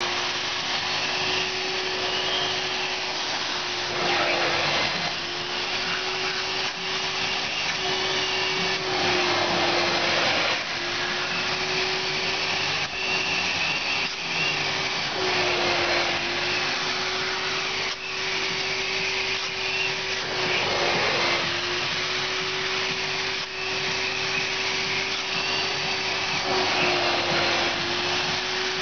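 Upholstery spray-extraction cleaner's vacuum motor running steadily with a constant hum as its hand tool is drawn over a fabric car seat. Every five or six seconds there is a louder rush of suction, and the motor's note dips briefly.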